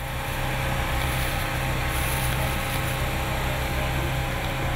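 Heavy construction machinery at a pipe-ramming site running steadily, a low engine-like hum under a constant wash of mechanical noise.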